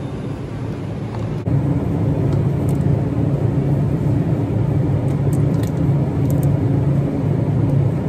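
Steady low hum of supermarket refrigerated display cases, which jumps louder about one and a half seconds in, with a few faint clicks over it.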